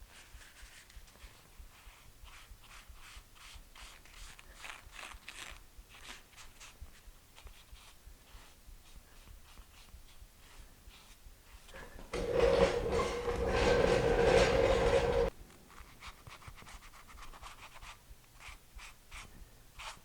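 A rag rubbing back and forth in short, faint strokes over the raised letters of a painted aluminum intake manifold, wiping off sanding dust. About twelve seconds in, a louder steady hiss lasts about three seconds and then cuts off.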